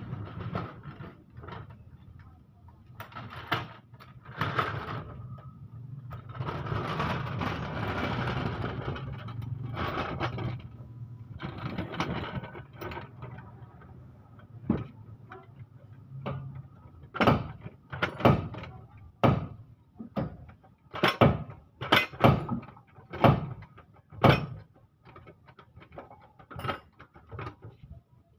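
A hydraulic floor jack scraping across a concrete floor, then being pumped with sharp clacks about once a second as it lifts the lower suspension arm.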